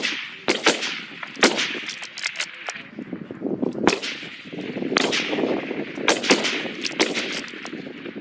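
Rifle shots from several rifles on a firing line: about a dozen sharp reports at irregular intervals, some a fraction of a second apart, each with a short echo. Shots come too close together for one bolt-action rifle.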